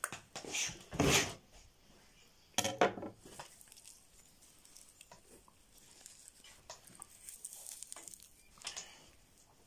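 Clattering knocks and scratchy rubbing as a singed trotter is scrubbed by hand against the bottom of a basin to clean off the charred hair. A few sharp knocks come in the first three seconds, then softer scraping follows.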